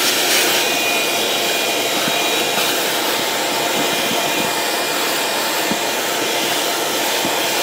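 Shop vacuum running steadily, its hose sucking sand out of a cargo box, with a few light clicks of grit or the nozzle knocking.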